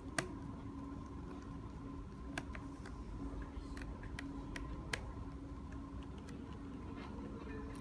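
Scattered small clicks and taps, several seconds apart, as hands handle a laptop's LCD panel and the small metal brackets and screws at its corner, over a steady faint hum.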